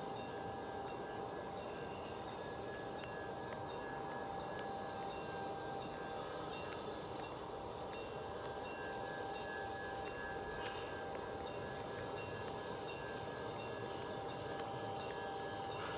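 G scale model freight train rolling steadily past on outdoor garden-railway track, pulled by two Bachmann Dash 9 locomotives. Its wheels make a continuous rumble, with a steady high whine and scattered light clicks over the top.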